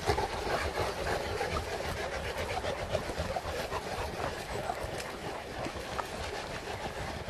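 Wind buffeting the microphone over outdoor ambience, with scattered light clicks of paws and footsteps on paving from a large pack of St. Bernard dogs being walked.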